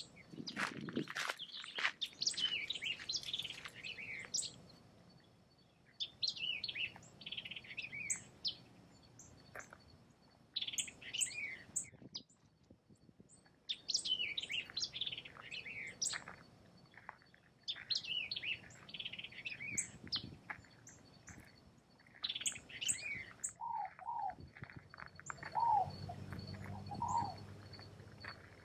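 A songbird sings a short falling, chirping phrase over and over, about one every two seconds. Near the end a lower-pitched bird calls repeatedly.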